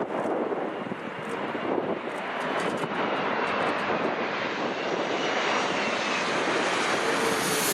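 Jet airliner passing low overhead: a steady engine rush with a faint whine, the hiss growing brighter as the aircraft closes in.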